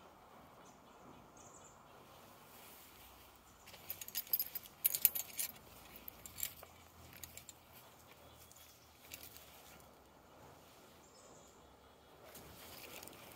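Metallic jangling and clicking rattle for about two and a half seconds, starting about four seconds in, over quiet outdoor background with two faint bird chirps.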